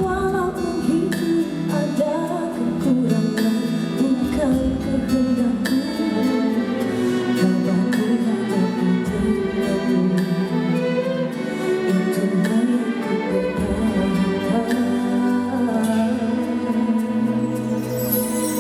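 A song: singing over instrumental backing.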